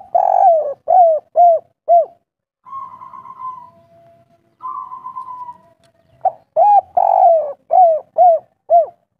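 Spotted dove cooing its song twice: a couple of short opening notes, one long drawn-out coo, then three short clipped 'kuk' notes, the 'kuk 3' pattern. Softer buzzy, rattling notes come between the two songs.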